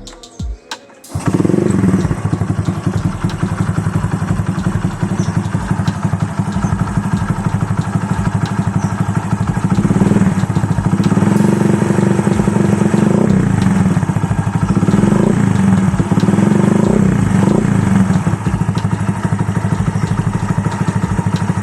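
Honda Vario 125 scooter's single-cylinder four-stroke engine running through an ABF Racing oval 30 cm aftermarket silencer. It starts suddenly about a second in, then idles with a deep, throaty exhaust note and is blipped several times in the second half.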